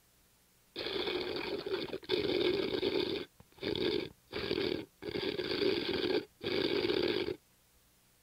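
Snoring sound effect: six noisy snore-like breaths, some long and some short, in quick succession with brief pauses between them.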